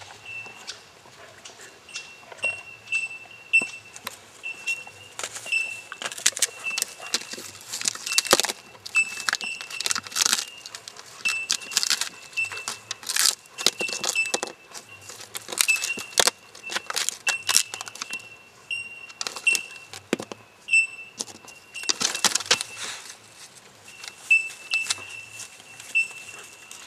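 Quick scratching and scraping strokes of a tool across a painted board, in irregular bursts. Behind them is a short high chirp repeating about twice a second.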